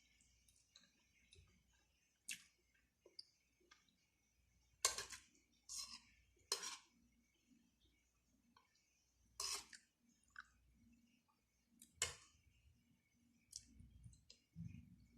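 Eating sounds: scattered sharp mouth clicks and smacks while chewing, a handful of louder ones spaced a second or more apart, over near silence.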